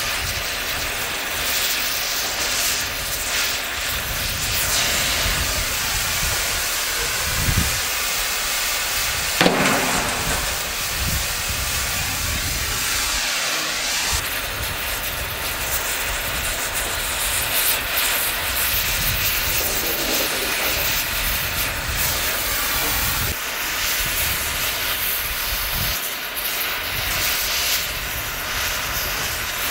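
Oxy-fuel cutting torch hissing steadily as it cuts through the steel of a steam locomotive's boiler, with a single sharp knock partway through.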